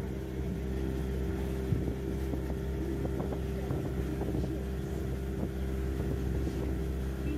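Motorboat engine running steadily under way, with water splashing against the hull.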